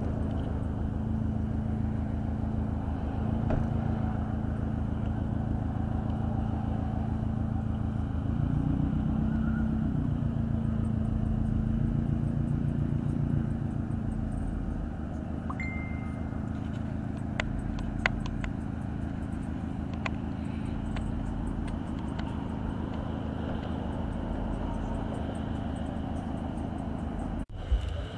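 A car engine idling, a steady low hum that swells a little about eight to ten seconds in and fades after about fourteen seconds. A few sharp clicks follow.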